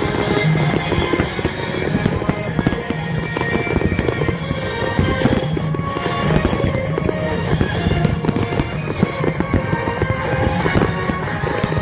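Fireworks display: a dense, continuous run of bangs and crackles from bursting shells, with music playing along.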